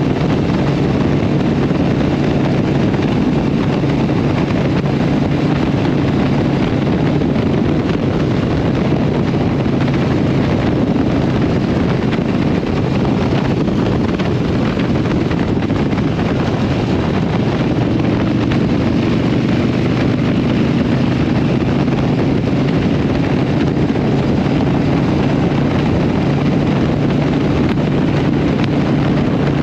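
Harley-Davidson Sportster Iron 883's air-cooled V-twin running at cruising speed through Vance & Hines aftermarket pipes, with wind rushing over the microphone. It eases off briefly about halfway through, then pulls back up.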